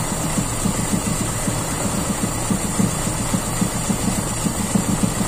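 Toyota Kijang Super's carburetted four-cylinder engine idling with an uneven, stumbling beat. The idle mixture is too lean, and a vacuum hose at the manifold seems to be leaking.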